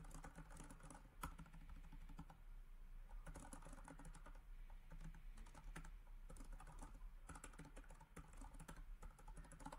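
Faint typing on a computer keyboard: quick runs of keystrokes separated by short pauses, as a sentence is typed.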